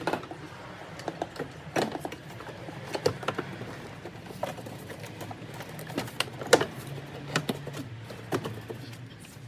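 Plastic cowl panel being fitted back into the BMW's engine bay, with irregular clicks and knocks of plastic seating against the body. The loudest knock comes about six and a half seconds in.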